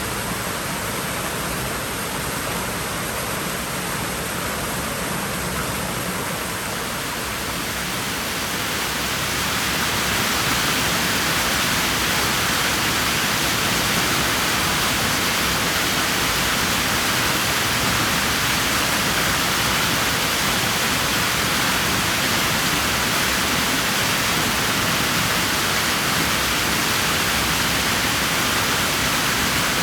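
Steady rush of water in a swimming pool, growing louder and brighter about a third of the way in, then holding even.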